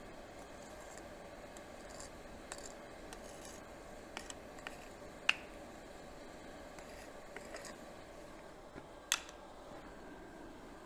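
Coal forge fire burning with a steady low noise and faint crackles, broken by two sharp metallic clicks about five and nine seconds in.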